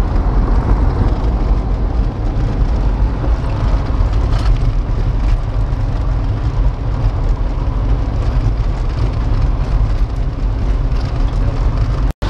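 Pickup truck driving on a dirt road, heard from inside the cab: a steady low rumble of engine and tyres on the road surface.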